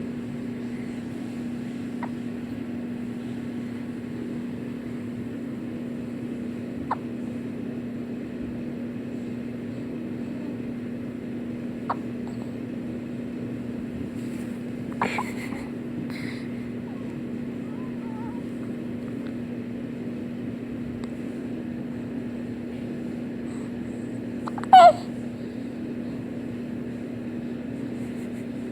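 Baby hiccuping every few seconds, short squeaky hics like a rubber chicken, the loudest near the end, over a steady low hum.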